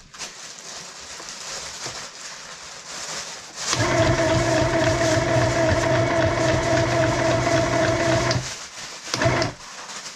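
Compact electric sewing machine running as it stitches fabric: a steady motor whir with rapid needle strokes, starting a little under four seconds in and lasting about four and a half seconds, then a short second run near the end.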